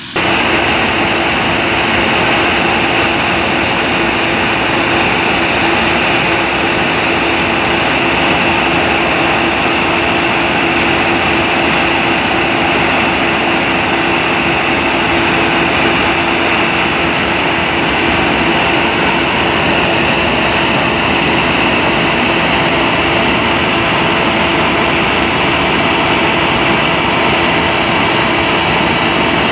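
Yanmar AW6120 rice combine harvester's diesel engine running steadily at high revs close up while its unloading auger empties the full grain tank into a truck: a loud, even drone with a constant hum.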